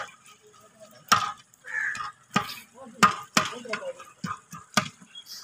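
A long metal ladle stirring a large aluminium cooking pot of steaming liquid, clanking and scraping against the pot's sides and bottom in about half a dozen sharp knocks.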